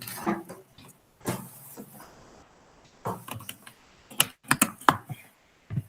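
A run of irregular sharp clicks and taps, like keys being typed on while device settings are adjusted, bunched about four to five seconds in.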